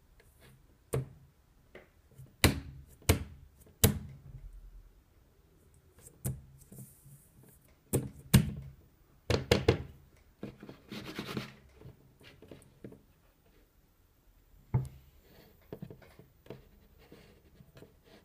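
Hands handling a plasma ball: irregular knocks and taps on its glass globe and base, coming in clusters, with a brief scraping rustle about two-thirds of the way through.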